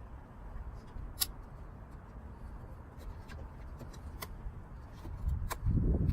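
Sharp plastic clicks and handling noise as the wiring connector is plugged back into a new BMW master window switch, with a louder rumble of handling near the end.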